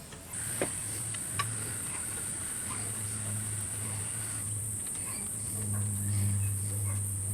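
A few light metallic clicks of a spanner working on the brake line's banjo bolt and washers. Under them runs a steady high-pitched trill and a low hum.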